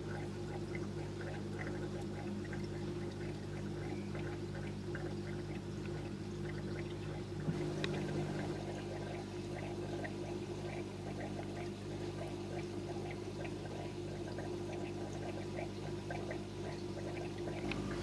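A steady low mechanical hum with water trickling and many small scattered clicks, and one sharper click about eight seconds in.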